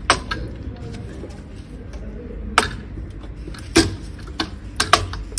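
About half a dozen sharp clicks and light knocks, spread out with a close pair near the end, as an inverter's main circuit board is worked loose and lifted from its metal chassis.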